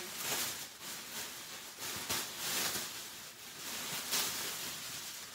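Clear cellophane wrap being pulled off a gift basket and bunched up by hand, crackling and rustling in irregular bursts.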